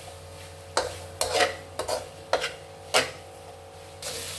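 Chicken stir-fried in hot oil in a karahi: about six sharp scrapes and knocks of a stirring spoon against the pan over a steady sizzle. The sizzling grows louder near the end.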